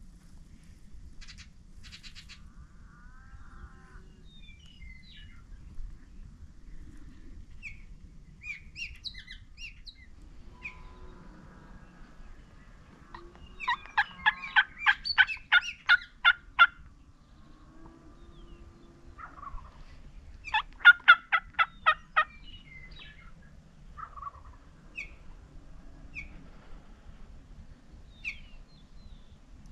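Rio Grande wild turkey gobbler gobbling twice: a long, rapid rattling gobble about halfway through and a shorter one about five seconds later. A few short bird chirps come in between.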